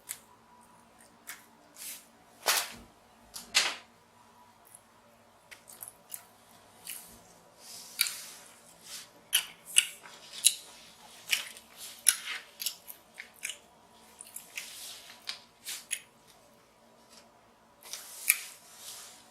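King crab legs being snipped with scissors, cracked and eaten close to the microphone: an irregular run of sharp snips and clicks, with a few longer crunches.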